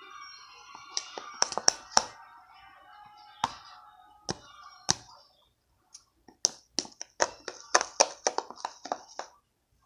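Irregular sharp clicks and taps of a mixing tool knocking against a plastic container while stirring slime, over faint background music in the first half. The clicks stop briefly about halfway through, then come faster and closer together.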